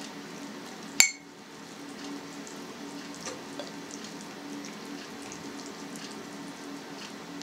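A metal spoon stirring flour and liquid in a mixing bowl for dough, with faint scraping ticks and one sharp ringing clink of the spoon about a second in. A steady low hum runs underneath.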